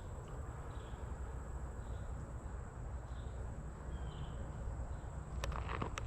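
Quiet outdoor ambience: a low rumble with faint, short chirps repeating every half second or so, as of insects, over a steady high thin tone. A few footsteps land near the end.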